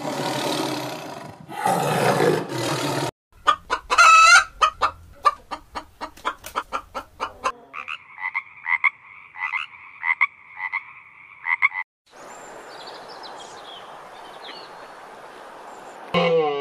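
A string of animal sounds. A tiger roars and growls for about three seconds, then comes a rapid run of short calls, then a frog calls in repeated pulsing notes for about four seconds. After that there is the wash of water with faint bird chirps, and a farm animal's call begins just before the end.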